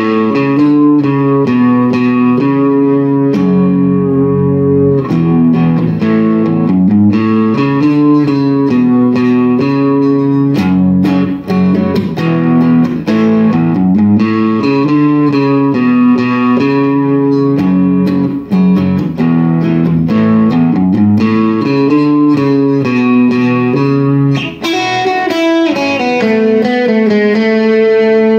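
Fender Telecaster electric guitar played through a four-pedal effects chain, chorus and a Boss DS-1 distortion among them, into a small Fender tube amp: a continuous run of country-style picked single notes and double stops. It ends on a held, ringing chord over the last few seconds.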